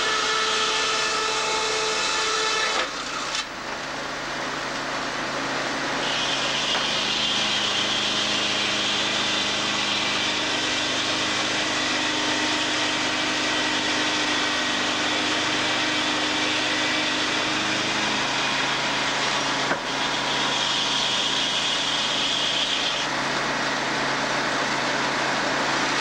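Sawmill edger saw cutting along a board, over the steady running of the mill machinery; the sound drops briefly about three seconds in.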